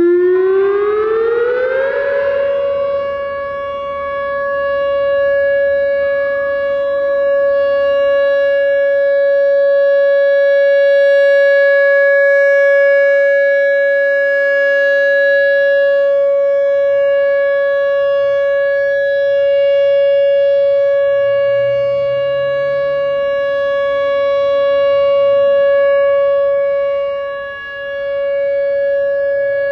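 Whelen WS-3000 rotating electronic siren sounding its steady Alert tone: it winds up in pitch over about two seconds, then holds one steady tone whose loudness swells and fades slowly as the horn rotates. The recordist suspects a few blown drivers, since it seems quieter than a typical rotating Whelen.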